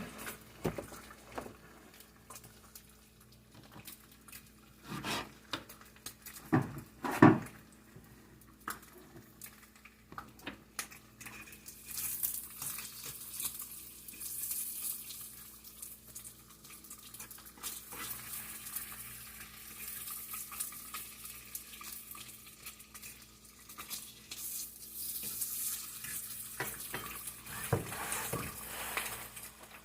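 Kitchen dishes and utensils knocking and clattering, with a few louder knocks in the first several seconds, then an uneven hissing from about twelve seconds in.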